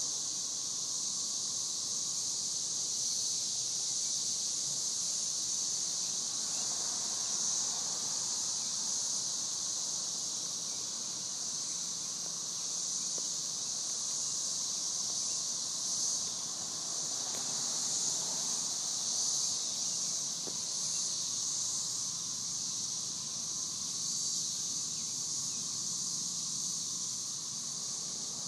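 A dense chorus of periodical cicadas in mass emergence: a continuous high-pitched drone, with slight swells in strength and no pauses.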